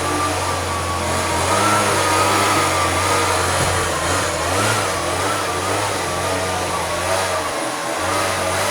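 Leaf blower running steadily, blowing snow off a car: a rush of air under a whine that wavers slightly in pitch.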